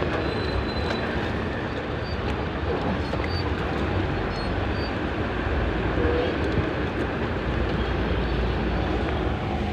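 A vehicle on the move: steady engine and road noise.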